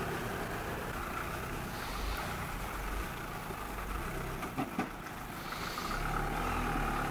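Dacia Duster SUV driving slowly while towing a small loaded box trailer, its engine running steadily. Two short knocks come about two-thirds of the way through.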